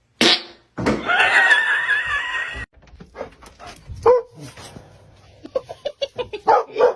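A dog whining in a long, wavering high note, followed by a series of short yips and barks.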